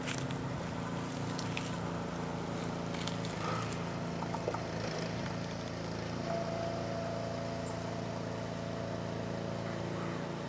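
An engine running steadily at constant speed, a low hum with an even, unchanging pitch. A higher steady tone joins about six seconds in, and there are a few faint clicks.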